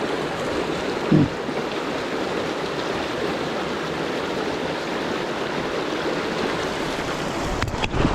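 Shallow river water rushing and babbling over rocks in a steady wash, with a brief low thump about a second in.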